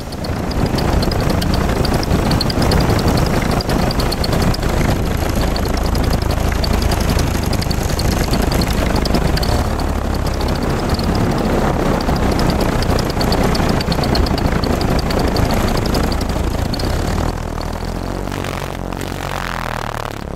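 A small engine running steadily, mixed with wind and water noise, and dropping in level near the end.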